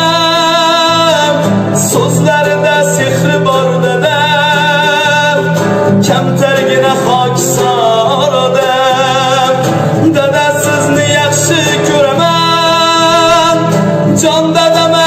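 A young man singing an Uzbek song in long held notes with vibrato, accompanied by a strummed acoustic guitar.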